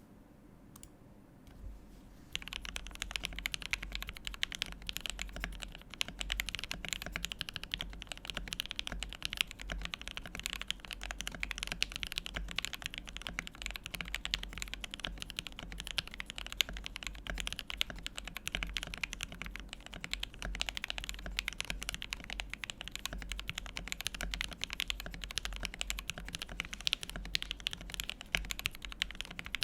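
Continuous fast typing on a Tofu 65 mechanical keyboard with an aluminium plate and Banana Split linear switches, lubed with 205g0 and filmed, with Durock v2 stabilisers. Dense key clacks start about two seconds in.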